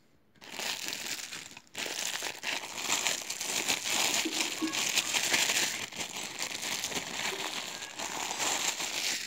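Plastic packaging being handled and crinkled, a dense run of irregular crackles that starts about half a second in and pauses briefly just before two seconds.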